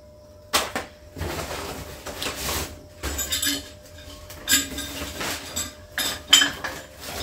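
Shopping items being handled and set down: rustling packaging between several sharp clinks and knocks, the loudest near the end.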